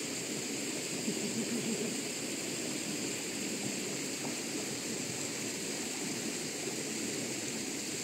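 River water rushing past, a steady noise that holds at the same level throughout.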